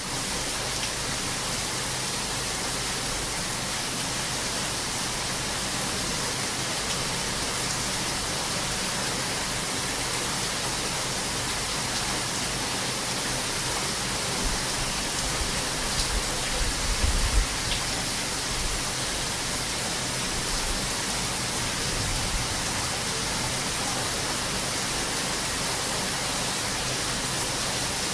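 Heavy rain falling in a steady, dense hiss. A brief low rumble swells about two-thirds of the way through.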